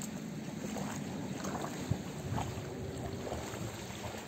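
Shallow sea water lapping and washing on a pebble shore, a steady watery wash with a few small clicks, one sharper about two seconds in.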